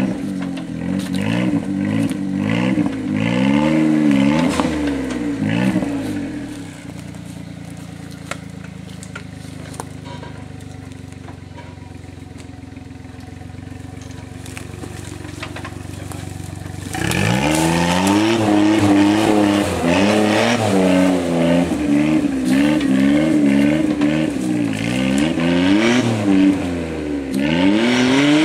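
Suzuki Jimny JA11's F6A turbo three-cylinder engine revving up and down under load, then dropping to a steady idle for about ten seconds before revving hard again, over and over, to the end.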